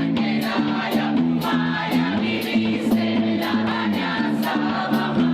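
Gospel music: a choir singing held chords over a band, with a steady beat on the cymbals about twice a second.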